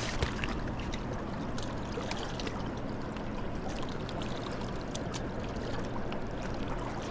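Steady rush of flowing river water, with a few short faint clicks over it.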